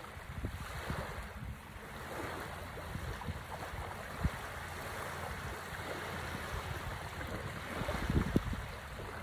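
Small waves washing onto a sandy shore, with wind buffeting the microphone in low gusts that grow stronger near the end. A single sharp knock about four seconds in.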